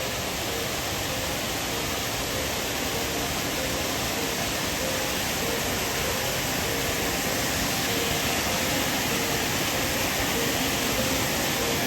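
Steady rushing of falling water from a waterfall, an even hiss that slowly grows a little louder.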